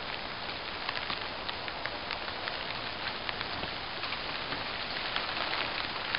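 Rain falling steadily: an even hiss with many small, irregular drop ticks.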